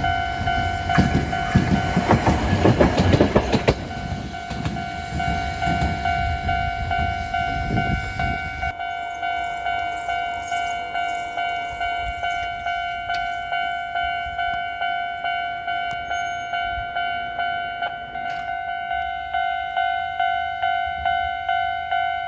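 Japanese level-crossing alarm ringing its steady, evenly repeating "kan-kan" clang. Over it, Kagoshima City Tram No. 615, a 1962-built streetcar, rumbles and clatters across the crossing on its steel wheels, loudest about two to three seconds in. The tram noise stops abruptly at about nine seconds, and the bell rings on alone.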